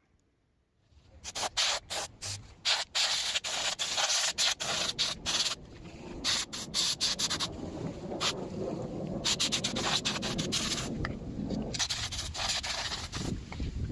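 Rubbing and scratching in quick, irregular strokes that come in several bursts, over a lower, rougher rubbing noise.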